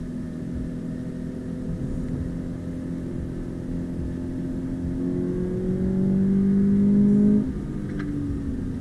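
2020 Subaru BRZ's 2.0-litre flat-four engine heard from inside the cabin, pulling steadily and then revving higher and louder under acceleration from about halfway through. Near the end the revs drop suddenly, as with a gear change in the manual gearbox, and start climbing again at a lower pitch.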